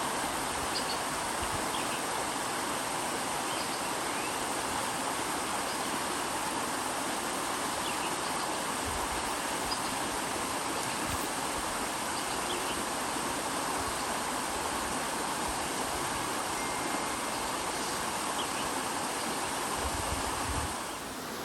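Flowing water rushing steadily, with a few faint bird chirps.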